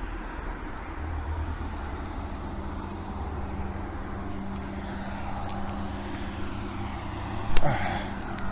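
Steady low hum of a motor vehicle's engine. A single sharp knock comes near the end as the camera is handled.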